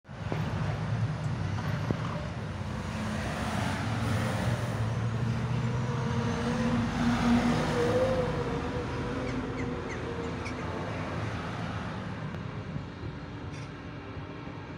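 Articulated lorry with a curtain-sided trailer driving past, its engine running with road noise. The sound swells about halfway through and then gradually fades.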